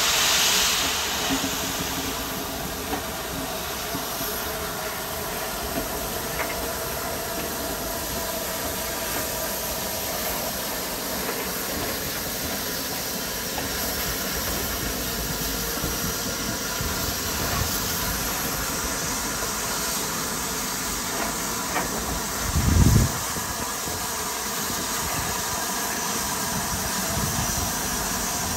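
Rebuilt Merchant Navy class steam locomotive 35028 'Clan Line' hissing steam from its cylinder drain cocks. The hiss is loud at first and dies down about a second in to a steady lower hiss. A short low thud or rumble comes about 23 seconds in.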